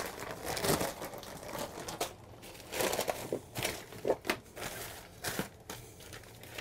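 Black plastic bag crinkling and rustling in irregular bursts as it is handled and laid down.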